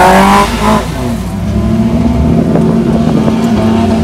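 Off-road 4x4's engine heard from inside the vehicle, revving up briefly at the start and then pulling at a steady pitch.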